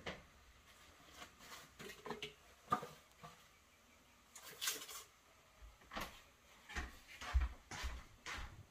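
Scattered light knocks and clicks of things being handled in a kitchen, with a brief hissing rush about halfway through.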